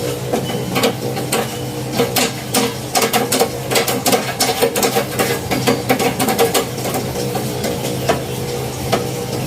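Sewing machine pedal pumped with bare feet: the pedal and machine mechanism clatter in quick, irregular clicks and knocks over a steady hum, busiest in the middle.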